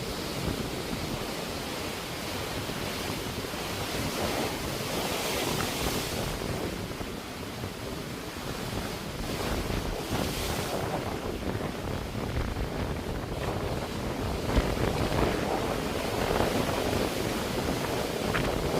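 Sea waves washing onto the shore, the surf swelling and easing every few seconds.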